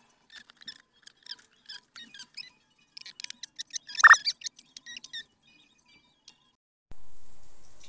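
A quick string of short, high-pitched squeaks, with one louder squeal about four seconds in. About seven seconds in comes a sudden whoosh that fades away: a video-transition sound effect.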